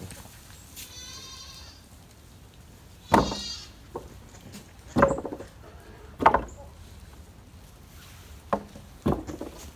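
Goats bleating: about half a dozen separate calls, the first high and wavering about a second in, the loudest around three, five and six seconds in.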